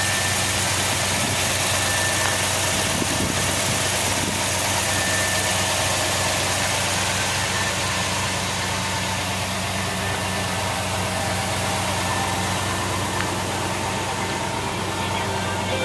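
Early-1970s Chevrolet Custom/10 truck's engine idling steadily.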